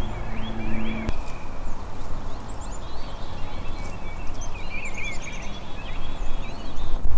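Dawn chorus of songbirds, many short chirps and trills overlapping, over a steady low rumble.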